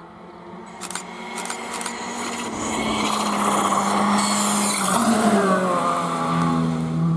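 Škoda Fabia R5 rally car's turbocharged four-cylinder engine approaching at speed and getting louder, with a few sharp pops about one to two seconds in. Around the middle its pitch falls as the car slows for the bend and passes close by.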